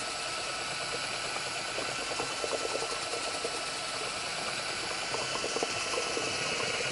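Cordless drill with a paddle mixer running at a steady moderate speed, stirring two-part water-based epoxy primer in a plastic bucket. The motor gives a steady whine over an even churning noise.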